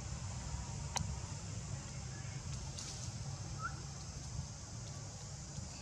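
Outdoor background sound: a steady low rumble under a continuous high insect drone, with one sharp click about a second in and a single brief chirp near the middle.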